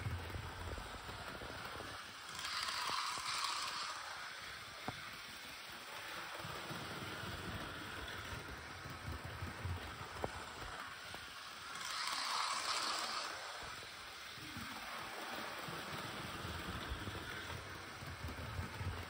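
Model railway HST train running laps of the layout: a steady whirr of motor and wheels on the track, swelling louder twice, about ten seconds apart, as it comes round.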